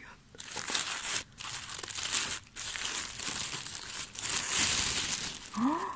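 Tissue paper crinkling and rustling as it is unfolded and pulled aside by hand, in bursts with two short pauses.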